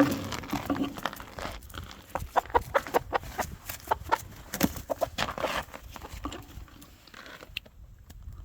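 Gamefowl chickens clucking in short, rapid notes, busiest between about two and six seconds in. The clucking opens with a loud bump.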